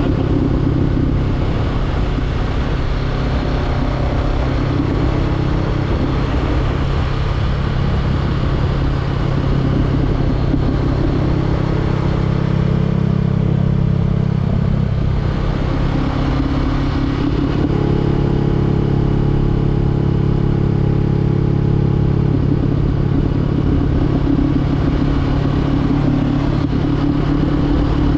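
Honda CBR500R's parallel-twin engine running under way through a LeoVince LV10 aftermarket exhaust. The engine note holds steady for long stretches and shifts pitch a couple of times, around the middle and again later on.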